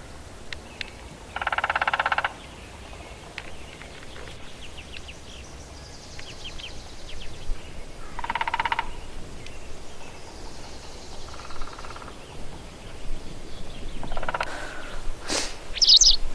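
A woodpecker drumming on a tree in three rapid rolls of about a second each, with small birds chirping and trilling in between.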